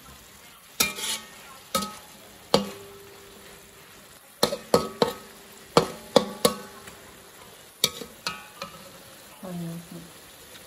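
Metal spatula knocking and scraping against a metal wok during stir-frying, about a dozen irregular strikes, each ringing briefly, over a faint sizzle.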